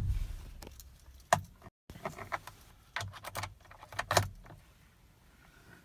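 Car keys jangling with a series of sharp clicks, in groups about a second and a half, two, three and four seconds in, as the key is worked in the ignition of a 2015 Kia Soul. No starter cranking or engine is heard: a no-start, later traced to a failed starter.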